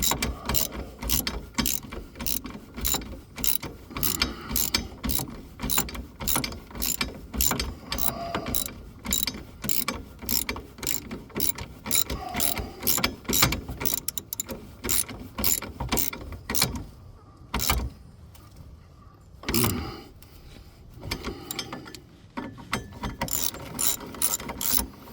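Hand socket ratchet clicking rapidly, about three clicks a second, as a shock absorber mounting bolt is turned in by hand. The clicking pauses briefly about 17 seconds in, then resumes.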